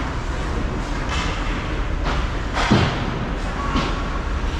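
Ice hockey play close to the goal: a few sharp knocks and thuds of sticks and puck, the loudest about two and a half seconds in, over a steady rumble of rink noise.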